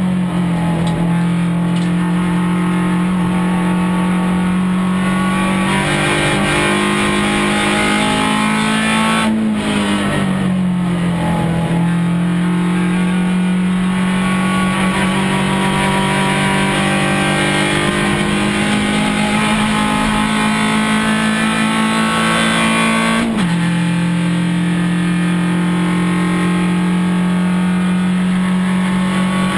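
Suzuki Swift Cup race car's four-cylinder engine running hard at high revs, heard from inside the cockpit. The pitch drops about ten seconds in, climbs slowly as the car pulls, then drops suddenly again about 23 seconds in, like gear changes.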